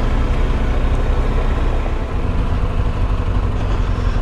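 BMW R1250GS Adventure's boxer-twin engine running steadily as the motorcycle rolls along a muddy dirt trail, with an even rush of wind and tyre noise over it.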